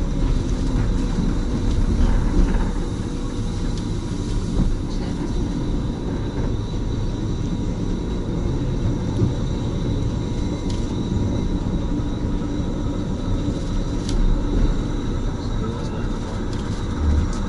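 Steady low rumble of a moving narrow-gauge railway carriage heard from inside, with a few scattered sharp clicks.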